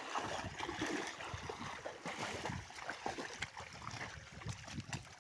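Shallow muddy water sloshing and splashing irregularly as feet wade through it and branches are dragged in the water.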